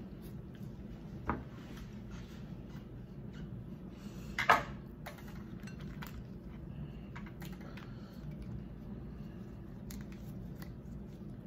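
Gloved hands picking through a seafood boil: faint clicks and rustles of shells and food over a low steady hum. There is a small sharp knock about a second in and a louder sharp crack or clatter about four and a half seconds in.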